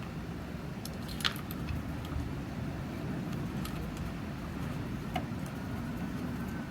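A few light clinks and taps from tools and parts being handled, over a steady low background rumble.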